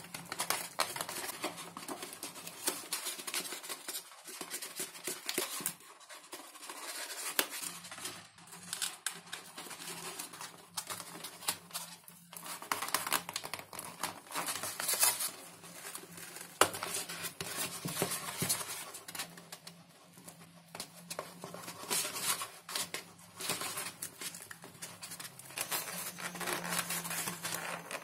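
Close, irregular hand-work noises on foam and balsa model parts: scratching, small clicks and crinkling, with a faint steady hum underneath.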